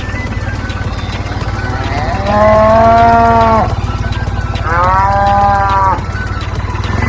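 A cow mooing twice, each moo about a second and a half long, over steady background music.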